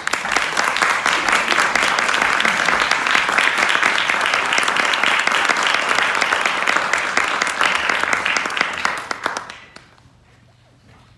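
Audience applauding, a dense patter of many hands clapping that dies away about nine and a half seconds in.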